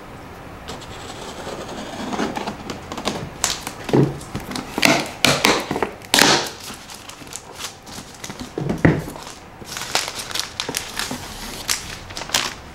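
Action-figure packaging being handled and opened: plastic and cardboard crinkling and rustling in irregular bursts, starting about two seconds in.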